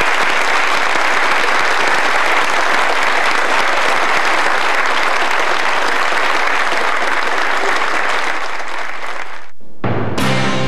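Audience applauding, a steady clapping that cuts off abruptly about nine and a half seconds in, after which music begins with a sharp hit.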